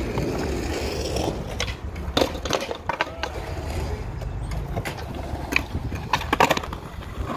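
Skateboard wheels rolling over rough concrete, a steady low rumble, with several sharp clacks of the board, the loudest about two seconds in and in a quick cluster near the end.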